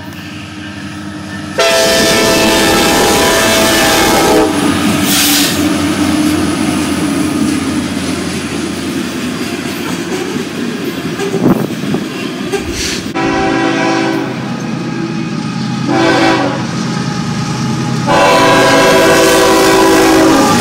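Diesel freight locomotive air horn sounding four blasts, long, long, short, long, the standard grade-crossing signal, with the last blast still sounding at the end. Between the blasts, loaded freight cars rumble and clatter past close by, with one sharp knock of the wheels about halfway through.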